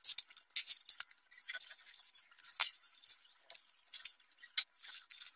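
Quiet, irregular light clicks and clinks as a thin aluminium sheet and a plastic PC cooling fan are handled and set in place on a wooden workbench.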